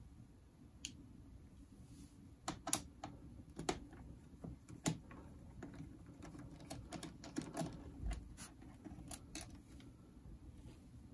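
Irregular small clicks and taps of a precision screwdriver and loose screws against a laptop's plastic bottom cover as the case screws are taken out, busiest through the middle of the stretch.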